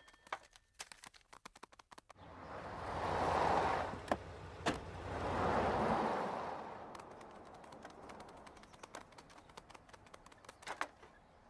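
A car driving past on a street, its noise swelling up and fading away twice in the middle, among sparse light taps and clicks.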